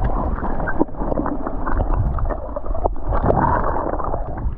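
Water sloshing and splashing, with wind buffeting the microphone.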